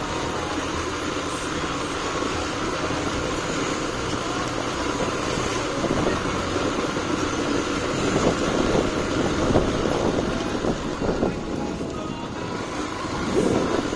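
A road vehicle driving along: steady engine and road noise that swells a little now and then.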